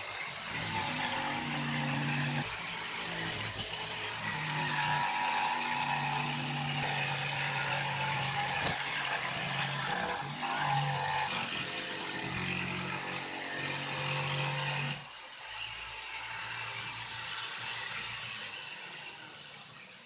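Corded electric jigsaw cutting a long strip from a sheet of marine plywood, its motor running steadily under load. The cut ends about fifteen seconds in and the sound drops away.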